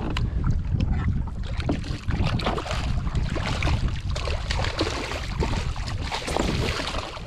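Wind rumbling on the microphone over a fishing kayak on the open ocean, with water lapping and a steady scatter of small irregular clicks and knocks.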